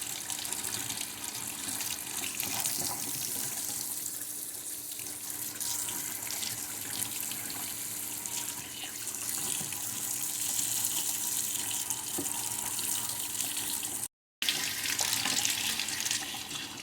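Warm tap water running steadily from a faucet into a sink, splashing over a clogged inkjet print head as it is rinsed to flush the dried ink out of it. The sound cuts out for a split second near the end.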